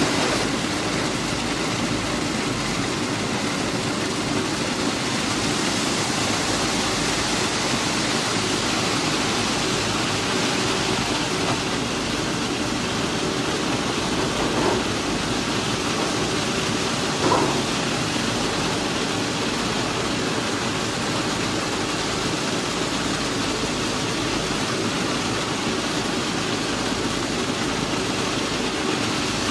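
Plasser & Theurer PM 1000 URM track renewal machine running steadily: a dense, hissing machine noise with a low hum underneath, and two short knocks about halfway through.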